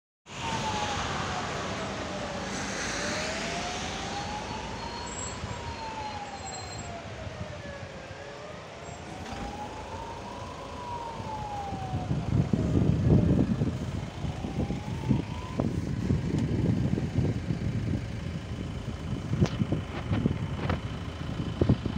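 A siren-like warning tone rising and falling slowly, one full cycle about every five and a half seconds, going on throughout. A car passes on the wet road at the start. From about halfway a loud, low, buffeting noise joins in.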